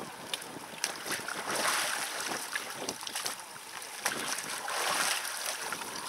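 Water splashing and sloshing in an ice-hole pool as a bather dunks himself under and comes back up, swelling in two louder surges.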